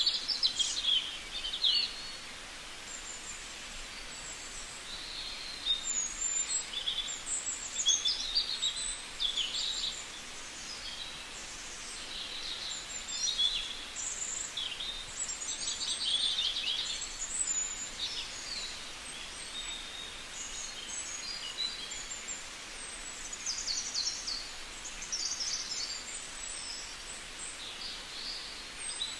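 Small birds chirping and trilling again and again, in short high-pitched phrases over a steady background hiss.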